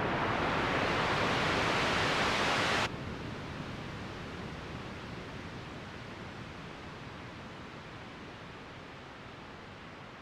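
Synthesized ocean-wave sound: a software noise generator run through a low-pass filter that an LFO sweeps, giving a washing hiss. The hiss is loud and bright at first, then about three seconds in its top end cuts off abruptly and it drops in level. It then keeps fading slowly.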